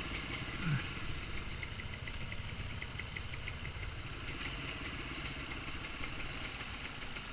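Husqvarna WR250 two-stroke enduro motorcycle engine idling steadily.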